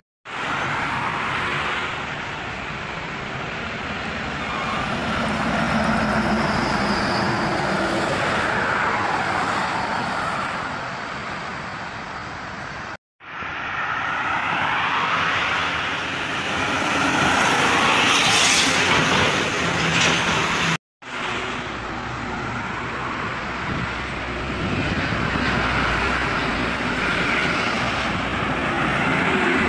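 Highway traffic passing close by: trucks, buses and cars going past one after another, their tyre and engine noise swelling and fading as each passes. The sound drops out for a moment twice, about 13 and 21 seconds in.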